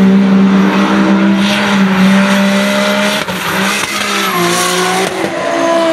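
BMW E46 drift car's engine held at high, steady revs while its rear tyres spin and squeal in a smoky drift. The revs dip briefly about three seconds in, then climb again.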